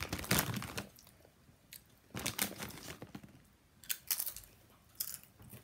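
Doritos chips being crunched and chewed by mouth, in about four short bursts with pauses between them.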